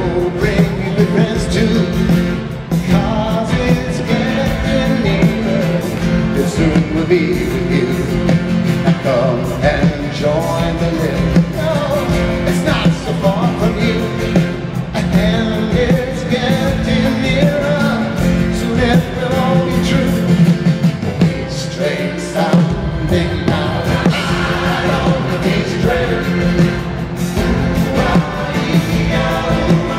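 Live band playing a folk-rock song with acoustic guitars, piano and drums, with singing over it, heard from the audience in a large arena.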